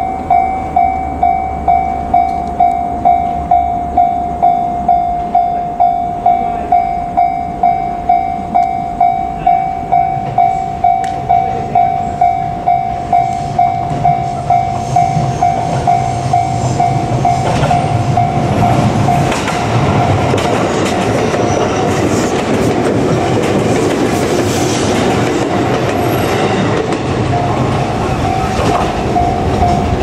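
Japanese level-crossing warning bell ringing about twice a second. From about halfway through, a JR Kyushu 787 series electric train passes, its running gear rumbling and clacking over the rails for roughly ten seconds and nearly drowning the bell, which is heard again near the end.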